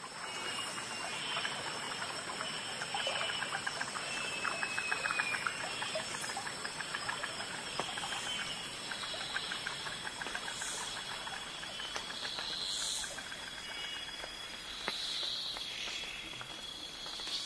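Nature ambience: a steady high insect drone with scattered short chirps over a soft hiss, and a stretch of fine rapid crackling in the middle.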